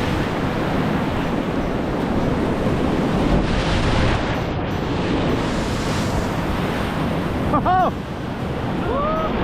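Steady rushing of river whitewater at a surfing wave on a rapid, with wind buffeting the microphone. Two short rising-and-falling high calls come through near the end.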